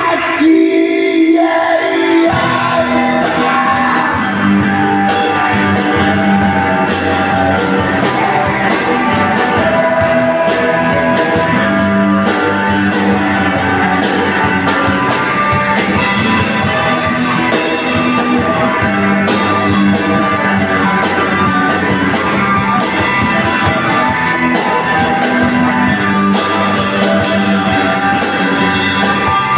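Live rock-blues band playing: electric guitar, bass guitar, drum kit and saxophone, with singing. The full band with drums comes in about two seconds in and keeps a steady beat.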